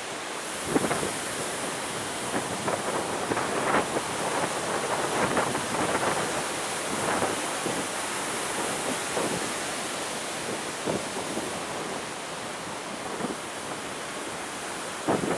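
Strong sea wind with the rush of surf, gusting across the microphone again and again.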